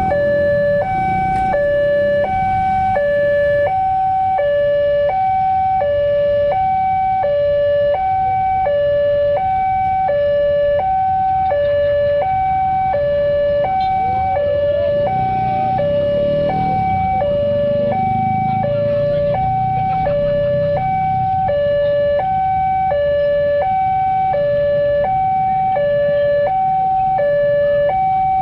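Railway level-crossing warning alarm sounding continuously, an electronic two-tone signal alternating high and low about once a second, with a low rumble underneath. It is the warning that the barriers are down for an approaching train or locomotive.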